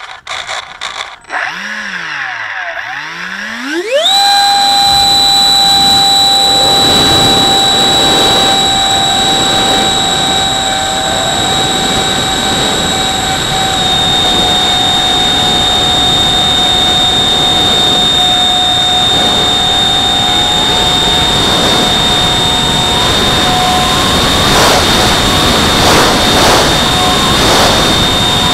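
Electric ducted fan (70 mm EDF) of a foamboard RC jet spooling up over the first few seconds. It settles into a loud, steady, high-pitched whine, with air rushing past, heard from a camera mounted on the airframe.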